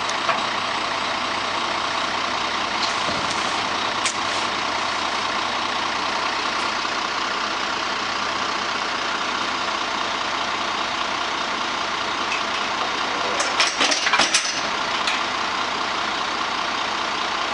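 Diesel engine of a Peterbilt 320 rear-loader garbage truck running steadily. A metal clank about four seconds in and a cluster of clanks near the end come from the steel dumpster and its lids.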